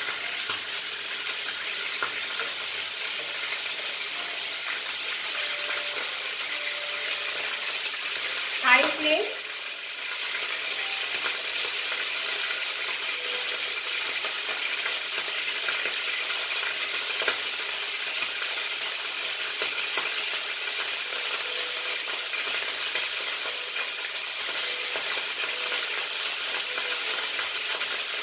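Mutton chunks frying in oil in a non-stick kadai on a gas burner, with a steady sizzle and crackle. About nine seconds in, a brief loud sound rising in pitch cuts across it.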